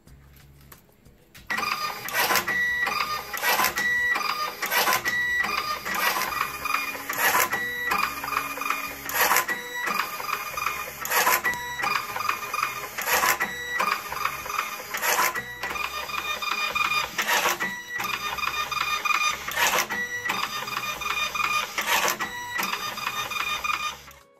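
Zebra ZT410 industrial label printer feeding and printing direct-thermal labels, starting about a second and a half in. Its drive motor whines in runs broken by short pauses, and its cutter snaps through the label stock with a sharp click every second or two.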